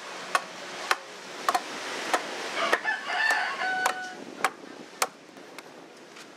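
Hand adze chopping into a block of wood, sharp knocks about twice a second. A rooster crows about three seconds in.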